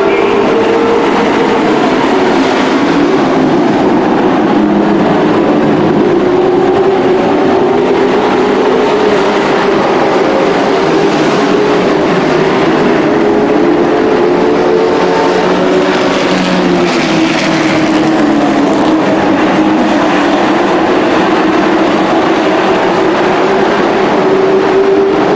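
Dirt-track race trucks running laps together, a loud, continuous engine drone whose pitch wavers slowly up and down.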